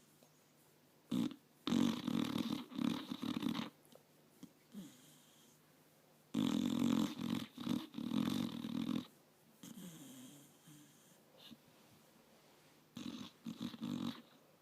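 Sleeping pit bull snoring: three long snores a few seconds apart, with quiet breathing between them.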